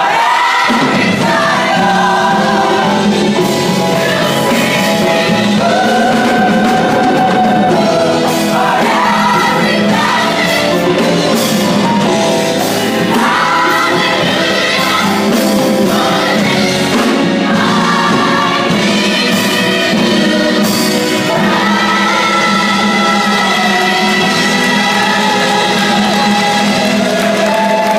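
College gospel choir singing live, many voices in harmony holding long chords, steady and loud.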